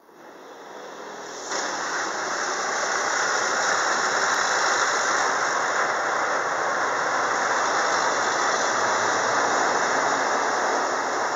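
Car-wash water jets spraying the car, heard from inside the cabin as a steady rush of water on the glass and body. It builds over the first second or so, jumps sharply louder about a second and a half in, and then holds.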